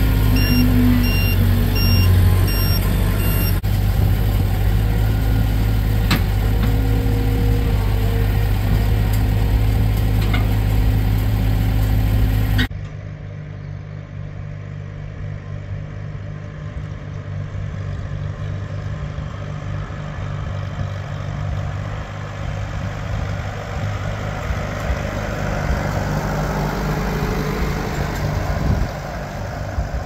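Skid-steer loader engine running loudly while it dumps feed, with a series of short high beeps in the first few seconds. After a sudden cut about 13 seconds in, a small older tractor's engine runs more quietly, getting louder as the tractor drives closer.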